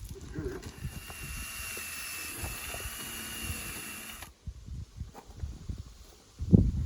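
Power drill running with a steady whine as it drives a screw into the wooden door frame, stopping abruptly about four seconds in. A loud knock follows near the end.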